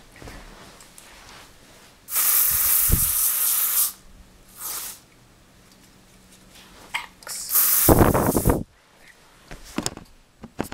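Bursts of hissing: a steady hiss lasting nearly two seconds starting about two seconds in, a brief fainter one around five seconds, and a louder, fuller hiss near eight seconds.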